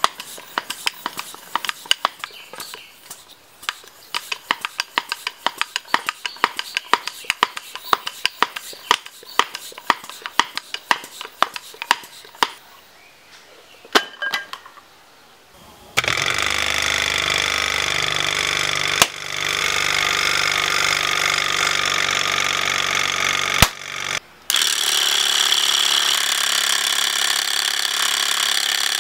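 A hand-held stick air pump being worked fast on a tyre inner tube, a quick run of sharp strokes, then set down with a clatter. From about 16 s, a homemade air compressor, an electric motor driving a small compressor head, runs with a steady mechanical drone; it cuts out briefly near 24 s and starts again.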